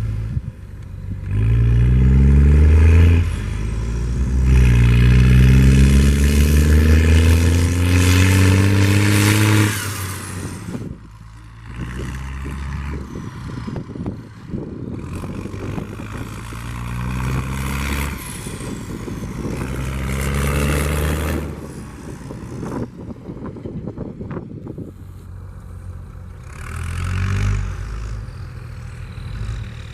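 International Harvester 1455 XL tractor's six-cylinder diesel engine revved hard: a short rev about a second in, then a long one climbing in pitch for about five seconds, followed by several shorter, weaker revs. Between the revs the engine drops back to a rough, clattering run.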